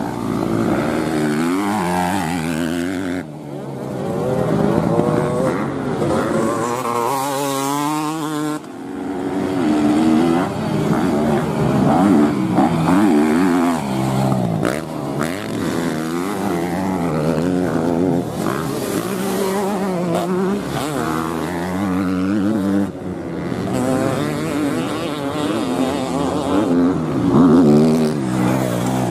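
Motocross dirt bike engines revving hard, pitch rising and falling again and again as the riders work the throttle and gears through the track. Two or more bikes are heard together at times. The sound drops briefly twice in the first nine seconds.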